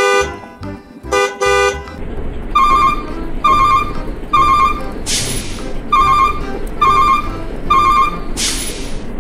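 Truck sound effects: two short horn toots, then a low engine rumble under a beep repeating a little faster than once a second, with two loud hisses about five and eight and a half seconds in.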